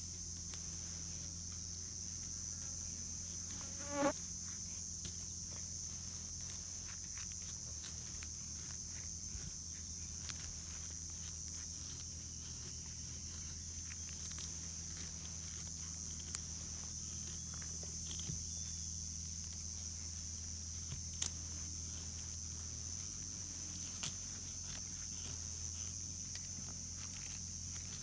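Insects, crickets or similar, chirring steadily and high-pitched, over a low steady hum. Scattered faint clicks, and about four seconds in a brief rising squeak.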